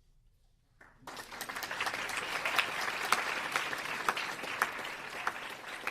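Audience applauding, breaking out about a second in after a moment of near silence.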